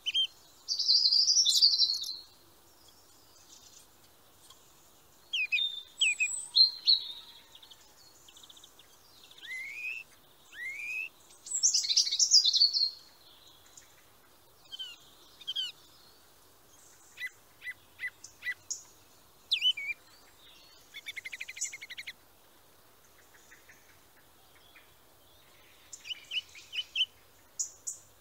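Songbirds singing and calling: scattered high chirps, a few rising whistles and a fast trill, coming in bursts with short pauses between.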